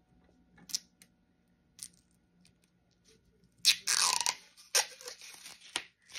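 Tape being pulled and peeled off a rolled canvas print: a few faint clicks, then a loud crackling rip about three and a half seconds in, followed by shorter crinkles.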